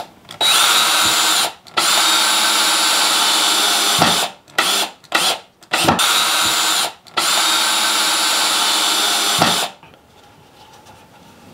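Power drill/driver driving long wood screws through pilot holes into 2x4 pine: several long steady runs with a few short trigger bursts in between, stopping a little before the end.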